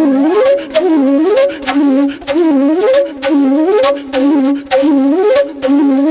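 Background flute music: a short phrase rising and falling, repeated about every 0.8 seconds.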